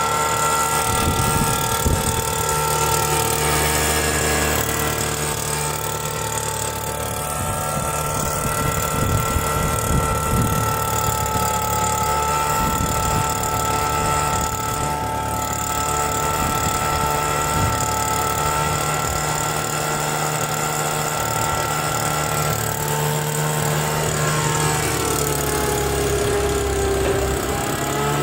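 Homemade drum-can leaf vacuum's blower running steadily: a fan whine over a low rumble. The whine sags in pitch for a few seconds near the end, then recovers.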